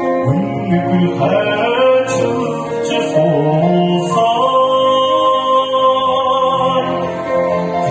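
A man singing a Mongolian popular song into a handheld microphone over a recorded backing track.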